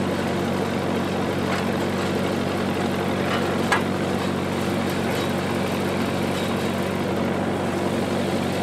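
Engine-driven generator running steadily at a constant speed. A single sharp metal clank about three and a half seconds in.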